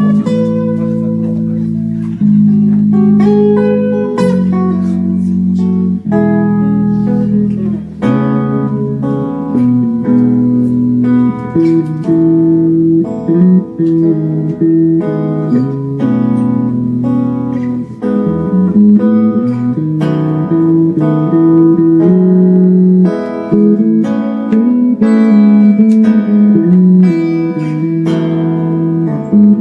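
Guitar music played live: held chords changing about every two seconds, then a busier rhythm of plucked notes from about eight seconds in.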